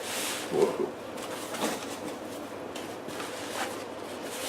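Rustling and handling of the wrapping around a newly unboxed kukri, in short scattered bursts.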